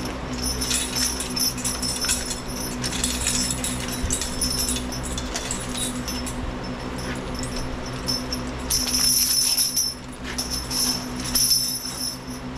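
Metal hardware of a new draft horse harness, its chains, snaps and buckles, jingling and clinking as the harness is handled and laid over the horse, in bursts that are loudest about nine seconds in and again near the end. A steady low hum runs underneath.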